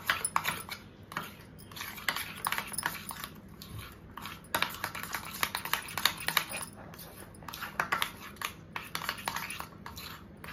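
Hand mashing and mixing hung curd with sugar in a stainless steel bowl: irregular squishing, scraping and light clicks of fingers against the steel.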